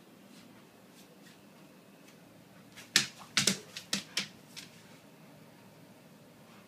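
A brief flurry of about six sharp clicks and knocks over a second and a half, the first the loudest.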